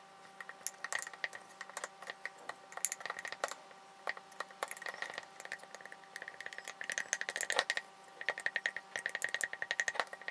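A spoon stirring a thick flour-and-water sourdough starter in a glass jar, working out the lumps, the spoon knocking against the glass in several runs of quick clicks.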